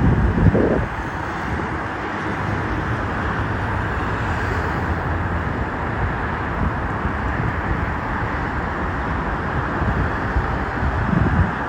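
Airbus A380-861's four Engine Alliance GP7200 turbofans at takeoff thrust, heard as a steady rushing noise. Wind buffets the microphone briefly about half a second in and again near the end.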